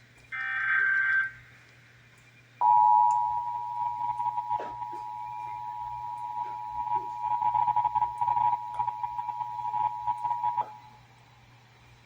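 The last burst of an Emergency Alert System SAME data header, a one-second digital screech. After a short gap comes the EAS two-tone attention signal (853 and 960 Hz), held steady for about eight seconds.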